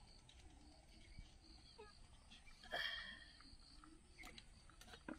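Near silence, broken by one brief high-pitched sound a little past the middle and a faint click near the end.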